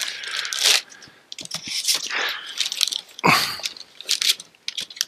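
Foam packing end caps rubbing and crunching against a cardboard shipping box as an oscilloscope is lifted out of it: irregular scraping bursts, the biggest a little over three seconds in.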